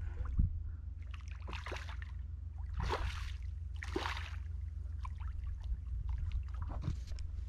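A small hooked snook thrashing at the water's surface, about four separate splashes as it fights the line, over a steady low rumble.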